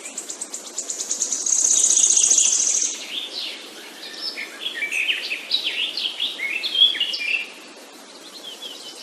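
Songbirds singing: a fast, high, rattling trill about a second and a half in, then a varied song of quick, high notes that stops about seven and a half seconds in.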